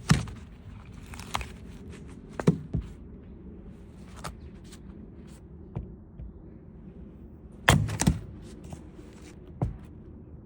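Wood being cut from a fallen tree for firewood: a handful of sharp wooden thunks at irregular intervals, the loudest right at the start and two close together near the end, with lighter cracks and clicks between.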